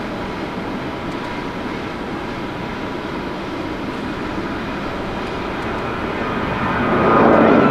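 Airliner jet engines running: a steady rush with a thin whine, swelling louder about seven seconds in.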